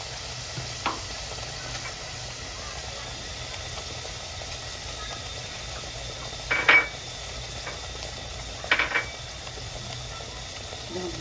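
Ground masala paste sizzling steadily in hot oil in an aluminium pot as it is fried down after a little water was added, with a few sharp clinks of a steel spoon against the pot, the loudest about six and a half seconds in and another near nine seconds.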